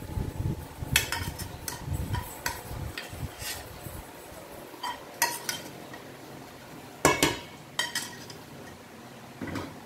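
Wooden spoon scraping and knocking inside a small pot as fried sausage, onion and garlic are emptied into a stainless steel bowl of rice. Scattered clinks and knocks of the pot and spoon against the bowl, the loudest about a second in and about seven seconds in.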